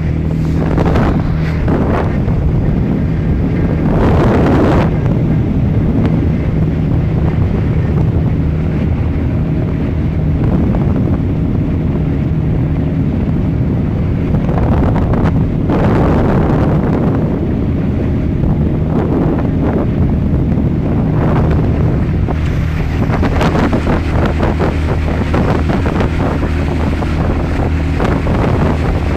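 Small motorboat running at speed: a steady engine drone with water rushing past the hull, and wind buffeting the microphone in gusts.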